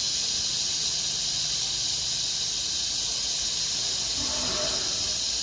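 Steady, even hiss that sits mostly in the high range, with a faint low hum beneath it and a brief faint tone about four seconds in.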